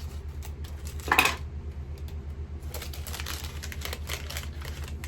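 Small plastic packaging and tiny kit pieces being opened and handled by hand: a sharp clack and rustle about a second in, then a run of light clicks and rustles. A steady low hum runs underneath.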